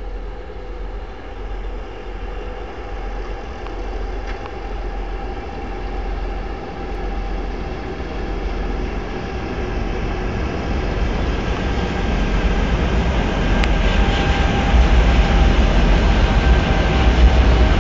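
Two ST44 diesel locomotives' two-stroke V12 diesel engines running as they haul a freight train away from a station stop, a steady throbbing drone with a deep rumble that grows steadily louder as they approach and pass.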